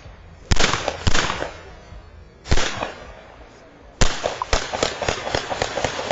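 Gunshots: five loud single shots spaced about half a second to a second and a half apart, then a quick string of smaller shots near the end, several a second.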